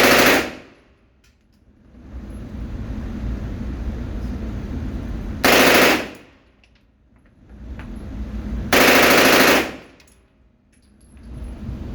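Machine gun firing short bursts of automatic fire: the tail of one burst at the start, a half-second burst about five and a half seconds in, and a longer burst of about a second near nine seconds in. Between bursts a steady low rumble fills the background, falling away briefly after each burst.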